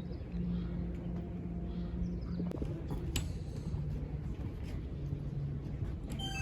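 Low steady background hum that drops out and comes back, with a couple of faint clicks midway.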